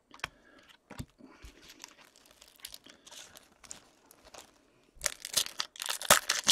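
Trading cards being handled, with light clicks and rustles as they are slid and set down, then about five seconds in a card pack wrapper is torn open and crinkled, louder.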